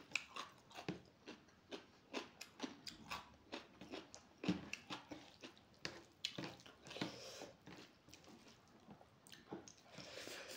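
Close-miked eating sounds: chewing and wet mouth clicks, irregular and several a second, with fingers squishing rice mixed with egg curry.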